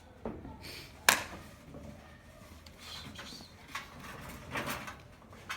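Puppies at play: soft scuffling and rustling, with one sharp knock about a second in.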